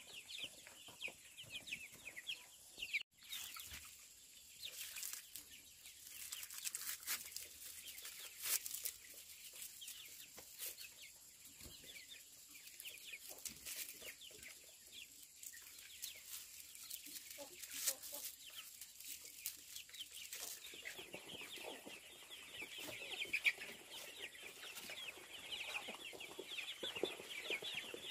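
Chickens clucking and peeping, with a run of sharp taps between about four and nine seconds in; the calling grows fuller and louder after about twenty seconds.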